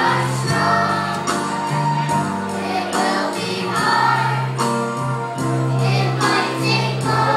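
A group of schoolchildren singing a song together as a choir, over live musical accompaniment with held bass notes and a steady beat.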